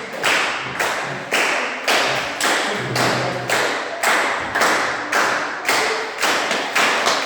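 Audience clapping in unison in an echoing hall, a steady beat of about two claps a second.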